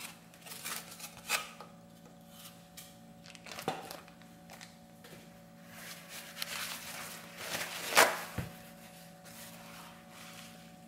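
Paper towels rustling and crinkling as a sheet is torn from a kitchen roll and laid over diced raw beef, with a few light taps on a wooden cutting board. The loudest rustle comes about eight seconds in.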